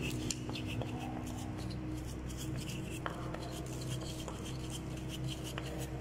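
Stiff brush scrubbing dust and plaster debris out of a plastic wall socket back box, a run of short scratchy strokes over a steady low hum.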